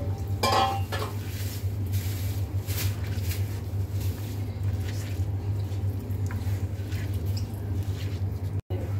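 A gloved hand kneading chopped onion and green chili in a ceramic bowl: soft wet squishing and rubbing, with a brief squeak about half a second in, over a steady low hum.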